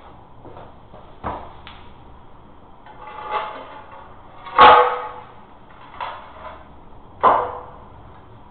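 About five separate knocks and scraping strokes, some swelling before a sharp hit, the loudest about halfway through: hand-tool work during a floor repair.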